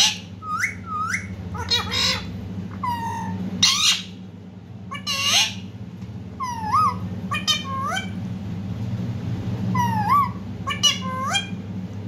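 Indian ringneck parakeet calling: about a dozen short squawks and rising, whistle-like chirps at irregular intervals, with a brief pause around the middle.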